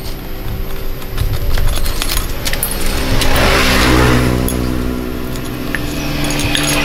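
Small metal engine parts clinking and rattling as they are handled, over the steady hum of a motor vehicle engine running, which swells louder midway.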